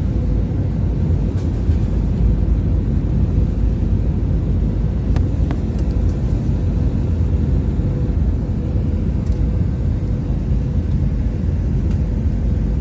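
Airliner cabin noise in flight: the steady low rumble of engines and airflow, with a faint steady hum.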